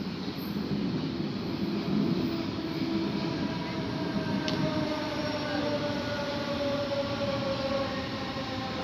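A red regional electric train running along a track with a rumble, its motors whining in several tones that slowly fall in pitch from a few seconds in.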